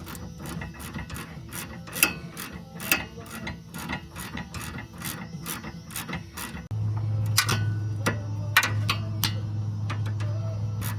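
Ratchet wrench clicking irregularly, a few clicks a second, as a nut on a car's front suspension link is worked loose. About two-thirds of the way in, a steady low hum starts and keeps going.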